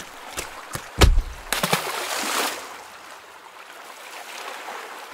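Sea water washing and sloshing, with a dull thump about a second in and a brief swell of wave noise just after it.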